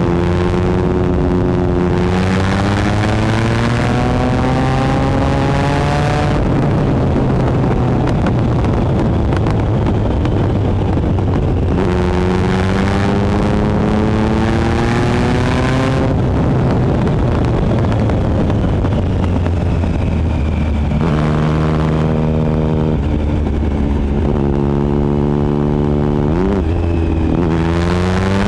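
2013 Triumph Speed Triple 1050's three-cylinder engine through a Competition Werks slip-on exhaust, heard from on the bike: it pulls with rising pitch twice, with stretches between where the engine note blurs into rushing noise. Later it runs steadier, gives a quick throttle blip near the end, and pulls up again.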